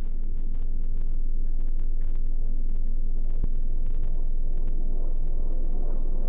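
Loud, steady low rumbling drone with a thin high tone held above it: a horror-film sound-design bed.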